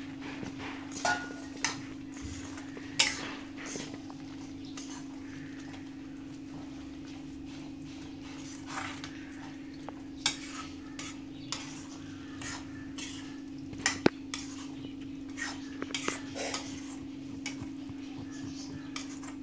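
A metal spoon stirring onion and capsicum into thick masala gravy in a steel kadai, with irregular clinks and scrapes against the pan. A steady low hum runs underneath.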